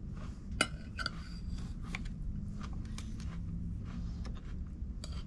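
A metal fork clinking and scraping against a ceramic plate while eating, a few sharp clinks with the loudest about half a second in, over a low steady rumble.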